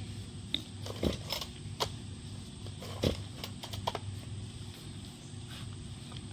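Scattered light knocks and clicks, the two strongest about a second and three seconds in, over a steady low hum; the chainsaw engine is not running.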